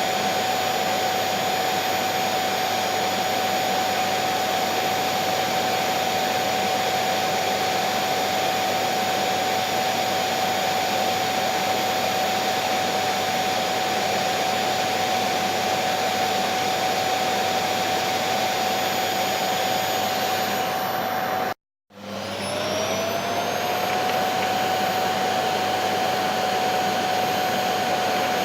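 Electric vacuum cleaner running with a steady, high motor whine over a rushing hiss. A little over twenty seconds in, it cuts out for a moment, then starts again, the whine rising back to full pitch over about two seconds as the motor spins up.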